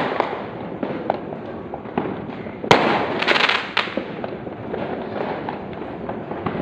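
Fireworks going off in a continuous rumble of distant bangs, with sharper nearby bangs every second or so; the loudest comes near the middle and is followed by a brief crackle.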